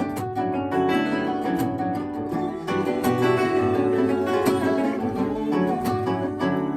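Three acoustic guitars playing together, a dense, steady flow of plucked and strummed notes.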